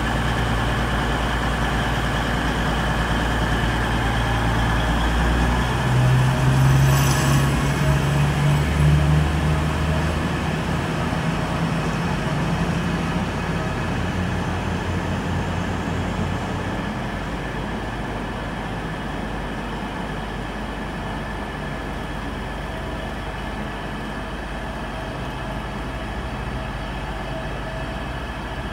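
Class 222 Meridian diesel multiple unit pulling out under power. Its underfloor diesel engines rise in pitch and are loudest a few seconds in, then fade steadily as the train draws away.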